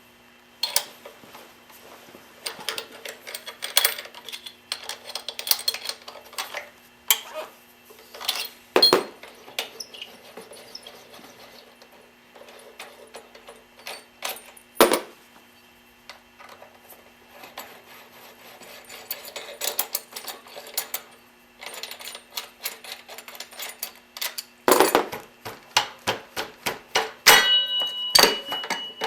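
Metal hand tools clinking and knocking against the front brake caliper and its bolts as the caliper is unbolted from a BMW F650 ST's fork, with a quick run of ringing metallic clicks near the end.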